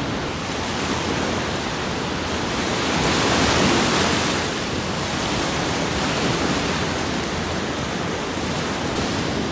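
Ocean surf washing onto a shallow sandy beach, a steady rush of breaking waves that swells for a moment about three seconds in as a wave breaks close by.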